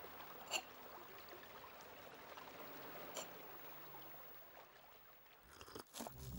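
Faint steady background hiss with two light clicks, about half a second and three seconds in.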